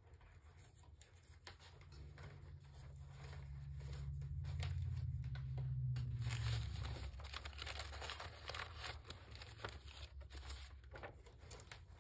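Sheets of paper rustling and crinkling as they are searched through and pulled out, with many small crackles. A low rumble swells and fades in the first half.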